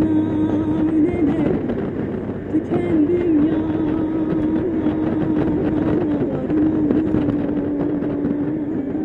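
Honda Gold Wing motorcycle cruising at steady road speed: a steady engine hum that wavers slightly in pitch, under wind and tyre noise.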